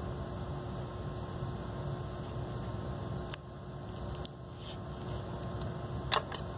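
Steady low hum of room ventilation with a faint constant tone, broken by a couple of brief clicks.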